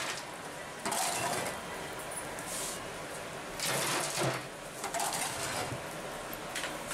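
Glowing wood embers shovelled from the fire and tipped onto a pot's metal lid, several shovelfuls, each a brief scraping, crackling clatter: live coals heaped on top of a sealed pot for dum cooking.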